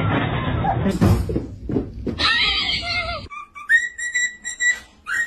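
A short wavering animal cry, then a cockatiel whistling: a few clear notes, mostly one high pitch held and repeated with short breaks, over the last two seconds.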